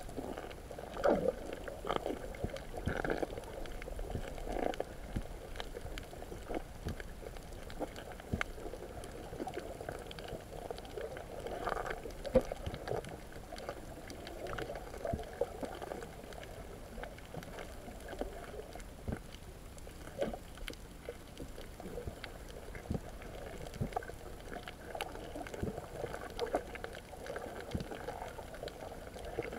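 Muffled underwater sound picked up through a waterproof camera housing while snorkelling over a reef: an uneven watery wash with scattered clicks and pops.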